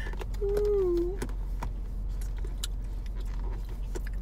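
A short hummed note from a person's voice, then scattered light clicks and taps over a steady low hum.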